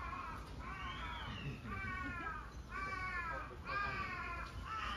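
An animal calling over and over, about five similar pitched calls, each falling slightly, roughly one a second.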